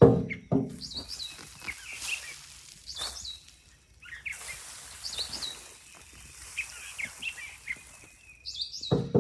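Songbirds singing repeated short, chirpy phrases over and over. A couple of loud knocks or rustles come right at the start, with another near the end.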